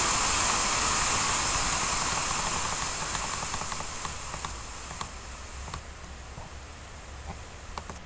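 Hearing-test calibration noise, a steady hiss from computer speakers, fading steadily as the volume is stepped down towards barely audible, then holding faint. Several faint clicks come in the second half, as the volume button is clicked.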